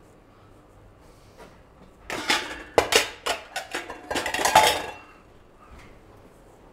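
Kitchen clatter: metal pans, bowls and utensils knocking together in a quick run of sharp clanks, starting about two seconds in and lasting about three seconds.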